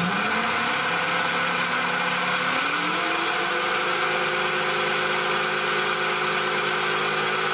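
QS120 electric motor driving the mini bike's large chain during a break-in run, a steady whine with chain whirr. The pitch rises as it spins up, climbs again about three seconds in, then holds steady.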